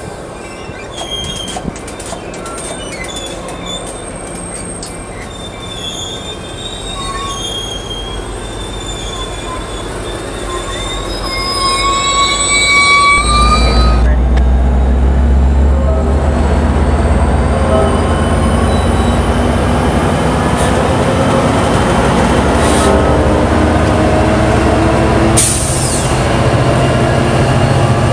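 Coaster bilevel commuter train cars rolling past with the wheels squealing on the rails. About 13 seconds in, this gives way to a louder, deep rumble of a passing train with a diesel locomotive's engine running.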